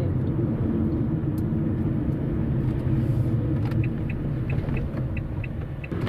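Steady low rumble of a car's engine and tyres on the road, heard from inside the cabin while driving. Faint light ticks come in over the last couple of seconds.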